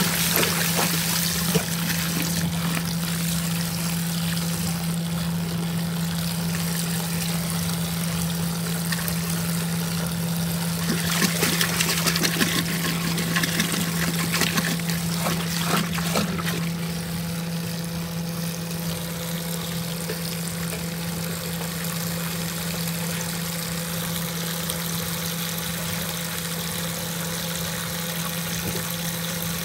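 Water showering from a top-loading washing machine's fill inlet into sudsy water in the drum: a steady splashing with a low steady hum underneath. It becomes a little quieter past the middle.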